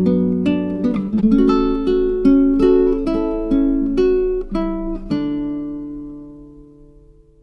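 Background music: picked acoustic guitar notes, closing on a final chord about five seconds in that rings and fades away.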